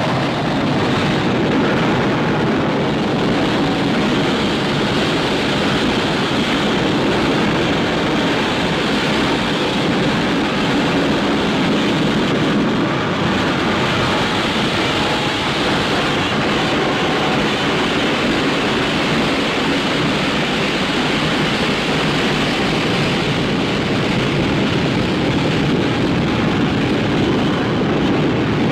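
Loud, steady rushing noise with no pitch or rhythm, holding level throughout and cutting off abruptly at the end.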